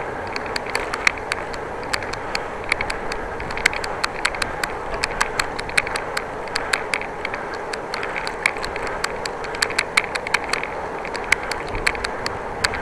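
Bicycle riding along the road: steady tyre and road noise with frequent irregular sharp ticks and clicks.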